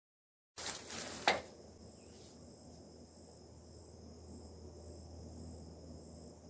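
Insects chirring in a steady, pulsing high chorus, with a low steady hum beneath. The sound cuts in abruptly about half a second in, and two sharp knocks come just after.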